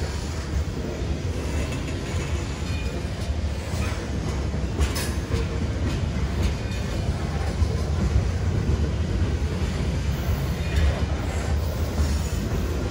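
Freight train of covered hopper cars rolling past at a grade crossing: a steady rumble of steel wheels on the rails with clickety-clack over the joints. A couple of brief sharp noises come about five and eleven seconds in.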